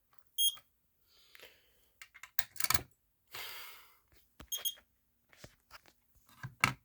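Smoke alarm giving two short, high chirps about four seconds apart, with sharp clicks and a brief hiss of handling between them. By its owner's reckoning the alarm is only resetting, not running its test.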